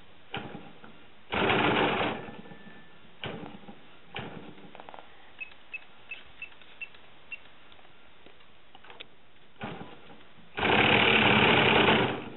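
Model airplane engine being hand-started by flicking the propeller: it fires briefly and dies several times, and twice it catches, running for under a second and then for nearly two seconds before cutting out.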